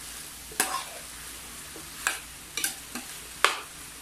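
Metal spoon stirring diced pork and vegetables in a square copper-coloured frying pan, scraping against the pan about five times over a steady sizzle.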